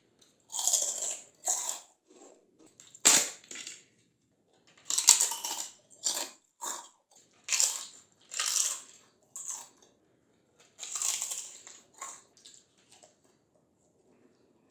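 Crisp crunching as someone bites and chews fried papads and fryums: about a dozen sharp crunches at irregular intervals, with short pauses between them.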